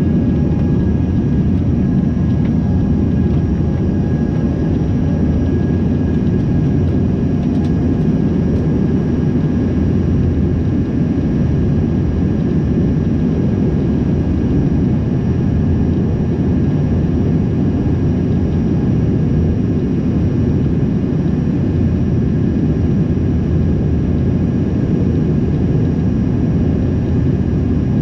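Cabin noise of an Embraer 145 regional jet in flight, heard beside its rear-mounted Rolls-Royce AE 3007 turbofan: a loud, steady, even low rumble of engine and airflow with a faint high whine held on top.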